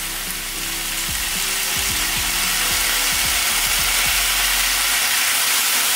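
Shredded potatoes frying in a pan, a crackling sizzle that grows louder over the first couple of seconds as balsamic vinegar is poured onto the hot pan, then holds steady.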